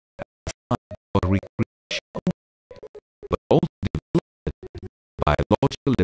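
Background music broken into many short fragments that cut in and out abruptly, with silent gaps between them.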